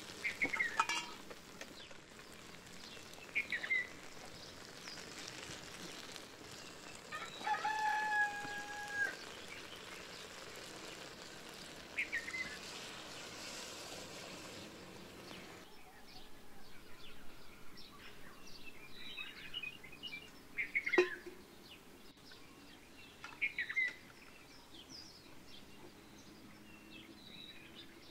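A rooster crows once, about eight seconds in, among scattered short chicken and small-bird calls. A single sharp knock comes about twenty-one seconds in.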